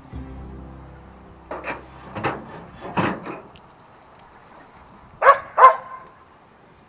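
A dog barking: a few short barks in the first half, then two louder barks in quick succession about five seconds in.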